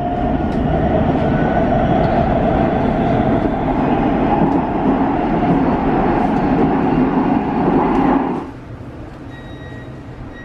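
Cabin running noise of a Škoda Varsovia metro train, a loud rumble with a whine, as it rolls into a station. About eight seconds in it drops away sharply as the train comes to a stop, leaving a low hum.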